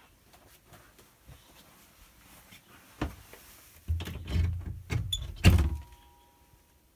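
Wooden storage cupboard doors being opened and handled: a single knock about three seconds in, then a run of knocks and thuds, the loudest shortly before the end.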